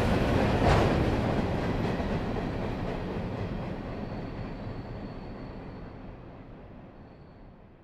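A steady rumbling, rattling noise with a single sharp clatter about a second in, fading out slowly and evenly.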